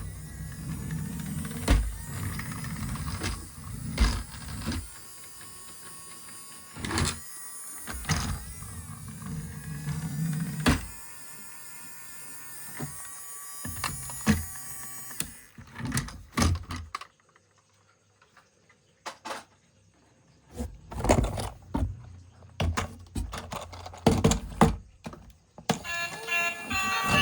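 A small electric motor whirring in stretches, with many plastic knocks and clunks, then a quieter spell of scattered clicks. A short tune begins near the end.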